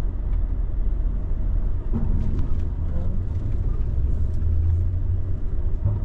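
Lorry's diesel engine running low and steady at crawling speed, heard from inside the cab as the truck rolls forward.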